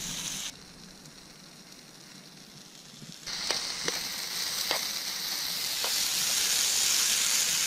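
Mushrooms frying in vegetable oil in a skillet over a campfire: a hissing sizzle with a few sharp pops. It drops away about half a second in and comes back louder around three seconds in, growing stronger toward the end.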